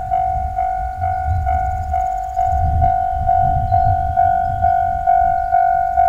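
Japanese railway level-crossing warning alarm ringing its repeated electronic 'kan-kan' bell tone, a little over two strokes a second, while the barriers stay down. A low rumble sits underneath and swells in the middle.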